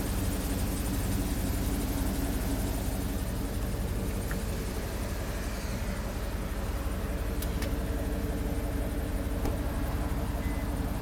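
Cadillac Escalade's 6.2-litre V8 idling steadily.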